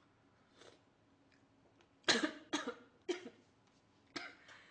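A woman coughing: three sharp coughs in quick succession about two seconds in, then a weaker fourth near the end. She is coughing on duck meat caught in her throat.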